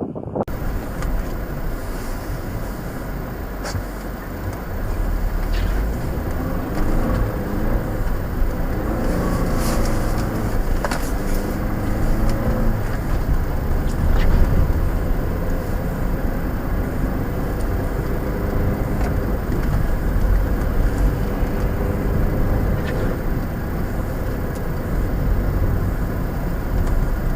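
A motor vehicle's engine running with a steady low rumble. Its pitch rises and falls for several seconds near the middle.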